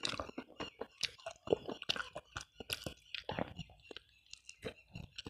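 Close-miked chewing and biting of soft, tender chicken (ingkung), with many short sharp mouth clicks. They come thick and fast for the first three and a half seconds, then fewer and further apart.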